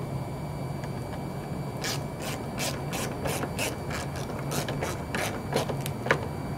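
Hand ratchet wrench clicking through a run of quick strokes, about three clicks a second, starting about two seconds in and stopping near the end.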